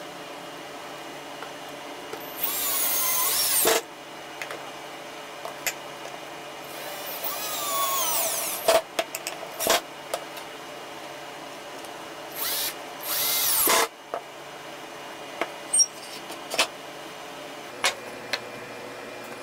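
Cordless drill driving screws into wood: three runs of the motor, each one to two seconds long, the last split into two short bursts, with the pitch bending as the screw bites. Sharp clicks and taps of screws and wooden parts being handled come between the runs.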